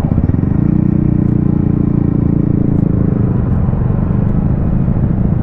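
Motor vehicle engine running with a steady hum that fades away about three seconds in, over a constant low rumble.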